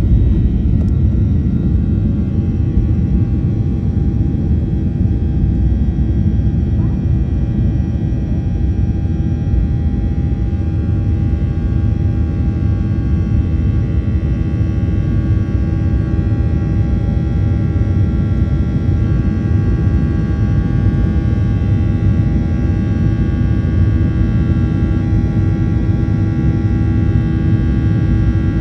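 Airplane engines running steadily: a constant low rumble with several steady whining tones over it, unchanging in level.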